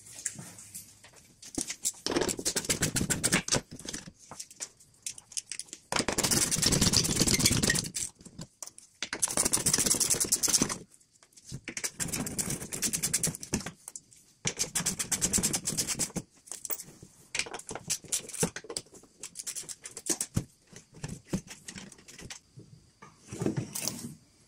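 Socket ratchet clicking in a series of bursts, each one to two seconds long, as the bolts holding the plastic underbody shield are backed out.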